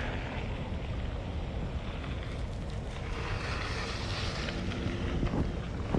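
Wind on the microphone: a steady low rumble with a faint hiss over it.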